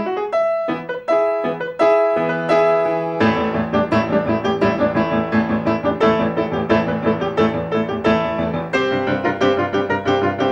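Solo piano music. A few separate notes ring out at first. About three seconds in, the playing fills out with low bass notes and quick repeated chords.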